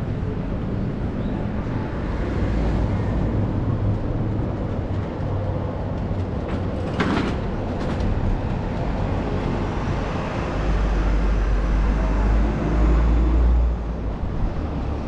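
City street traffic: a steady low rumble of passing vehicles, with a brief sharp rattle just after the middle. A heavier low rumble builds about two-thirds through, as of a large vehicle going by, and drops off near the end.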